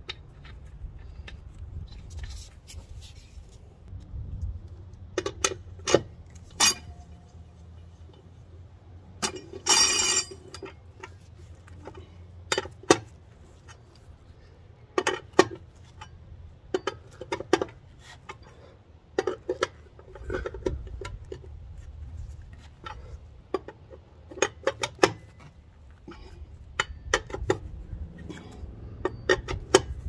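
Scattered metallic clinks and clicks of steel lug nuts being threaded onto a tractor's rear wheel studs and snugged with a long-handled lug wrench, with a brief rattling clatter about ten seconds in.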